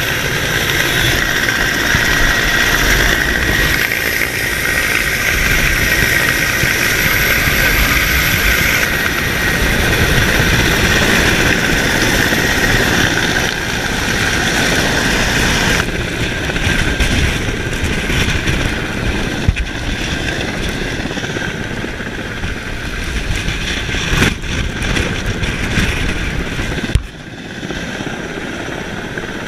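Helicopter turbine and rotor noise, loud and steady, mixed with wind buffeting the microphone during a winch descent below the hovering helicopter. A steady high whine runs through the first several seconds. Near the end a sudden knock is followed by a sharp drop in level.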